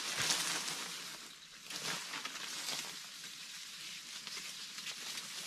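Leaves and stalks of tall grass rustling and swishing as they are grabbed and pulled down by hand, in several uneven surges, the loudest just after the start.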